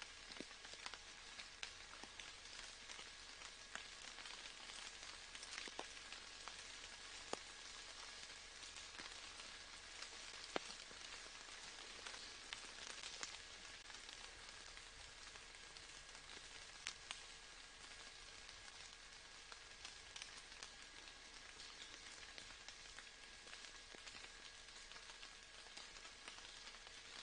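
Faint, steady rain with many scattered drops ticking.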